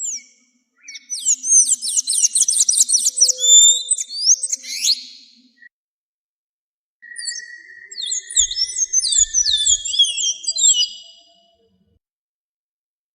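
An azulejo (ultramarine grosbeak) singing two fast phrases of sweeping, whistled notes: the first about a second in, the second after a short pause, ending a little before the close.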